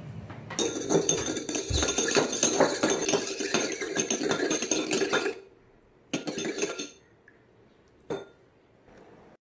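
Eggs beaten by hand in a ceramic bowl: a metal hand-mixer beater clinks rapidly against the bowl for about five seconds, stops, then gives a shorter burst of clinking and one last clink near the end.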